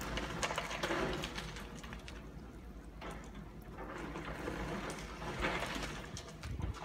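Demolition excavator's grab crunching into a building, with debris crackling and clattering down in two louder surges, about a second in and again about five seconds in, over a low rumble.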